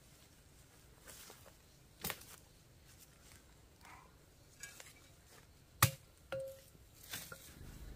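Scattered sharp knocks and clinks of hard objects, a few seconds apart. The loudest comes about six seconds in, followed by another with a brief ringing tone.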